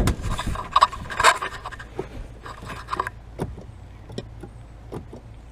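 Clutch pedal of a Nissan 240SX being pumped repeatedly to bleed air from the clutch hydraulics: irregular clunks and clicks from the pedal and its linkage, busiest in the first second and a half, then scattered sharper clicks.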